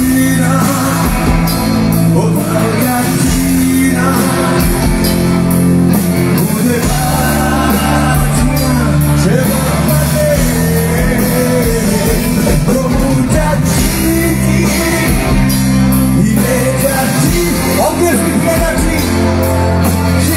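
Live rock band playing through a loud stage PA, with a male lead vocalist singing into a microphone over sustained bass and guitar chords, heard from the audience.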